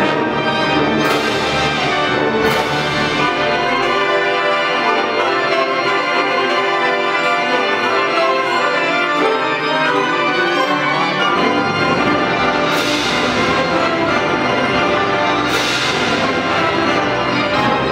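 Full wind band playing a loud passage of sustained chords, with four bright crashes, two near the start and two in the second half; the lowest bass drops out for a few seconds in the middle.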